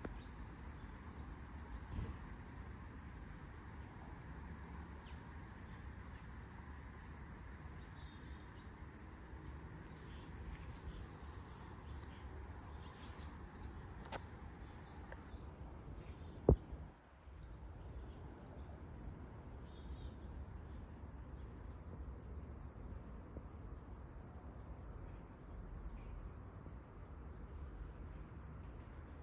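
Insects singing in a steady, high-pitched chorus over a faint low rumble, with a single sharp click a little past halfway.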